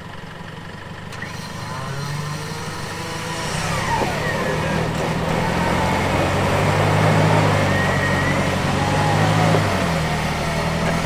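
Isuzu D-Max 4WD engine running under load as the bogged ute tries to drive forwards with its diff wedged; the revs climb and grow louder a couple of seconds in, then hold steady, easing briefly near the end.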